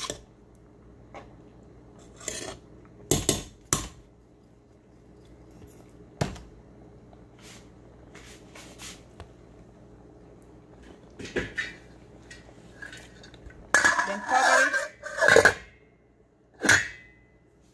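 Metal cookware clinking and knocking: a spoon tapping against a cooking pot a few times, a run of clattering about 14 seconds in, and a ringing clink of the metal pot lid near the end.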